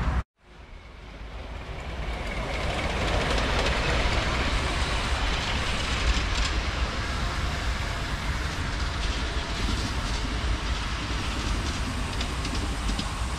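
Ride-on miniature train running along a raised track: a steady rumble of wheels on the rails with faint clicking. It swells over the first few seconds, then holds steady.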